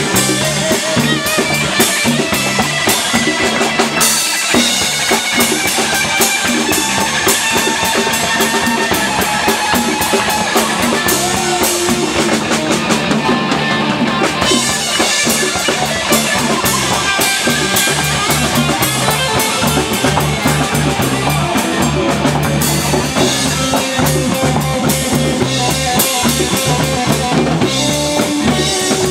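Live band music with no singing: a drum kit keeps a steady beat under electric bass and electric guitar.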